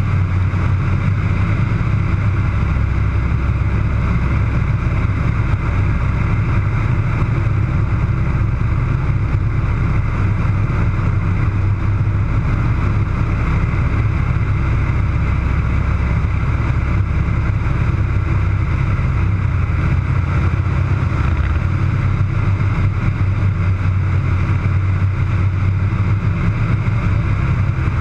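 Air Tractor AT-301 crop duster's Pratt & Whitney R-1340 radial engine and propeller running steadily in flight, a loud continuous drone heard inside the cockpit.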